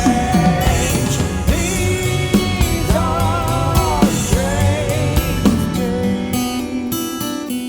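Rock-style song with a drum beat and long, wavering held vocal notes; about six seconds in the beat drops away and the music thins to quieter held notes.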